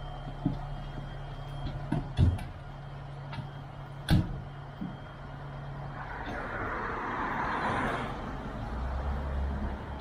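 Fire truck engine idling with a steady low hum. Several sharp knocks and clanks come in the first half, the loudest about two and four seconds in, and a rushing hiss lasts about two seconds in the second half.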